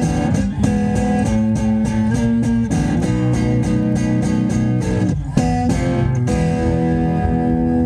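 Acoustic guitar strummed hard and fast in quick, even strokes, then a final chord struck about six seconds in and left ringing: the close of a song.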